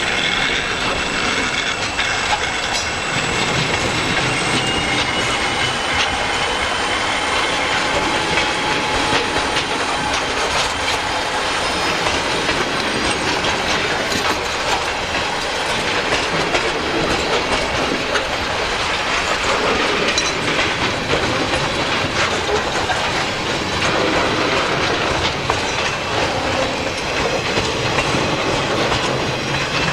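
Freight train rolling past: a steady rumble of wheels on rail with clickety-clack over the rail joints and thin, high wheel-squeal tones running through it.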